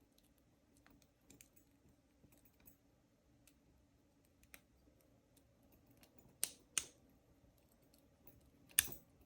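Faint scattered ticking of a lock pick working the pin stack inside an Ace 50mm laminated padlock, with a few sharper clicks about six and a half, seven and nine seconds in.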